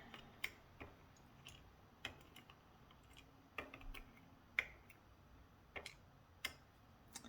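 Faint, irregular small clicks and taps from lock pins being handled and sorted while a pin-tumbler lock is disassembled, one click louder about halfway through.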